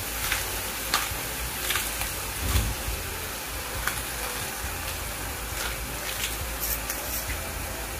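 Bok choy sizzling in a hot wok with a little water added: a steady hiss with scattered crackles and pops.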